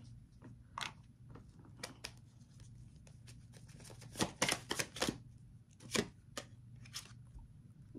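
Tarot cards being handled: scattered light flicks and snaps of card stock, bunched together about four to five seconds in.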